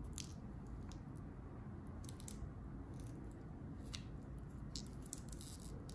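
Faint handling noise: gloved hands turning a stainless steel diver's watch on its link bracelet, with scattered small clicks and rustles from the bracelet links and the gloves.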